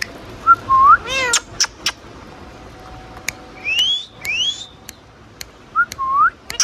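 Indian ringneck parakeet giving short whistled calls that slide up and down in pitch, one of them meow-like about a second in, with sharp clicks scattered between the calls.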